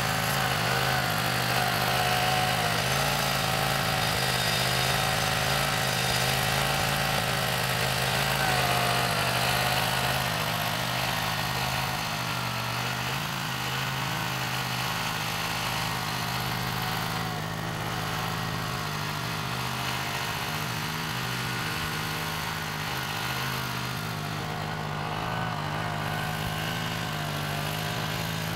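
Small engine of a Mini Brutus ride-on roller running steadily as the roller compacts tilled soil. It gets a little quieter about ten seconds in as the roller moves away.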